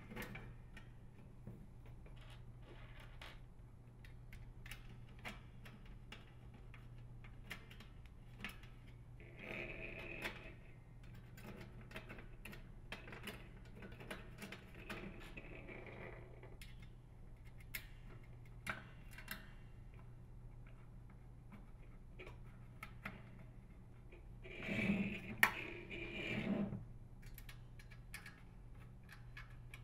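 Faint clicks and taps of small hex-head screws and a sheet-metal heater cover being handled and fastened, with a few short scraping rubs of metal, the longest and loudest about 25 seconds in. A steady low hum runs underneath.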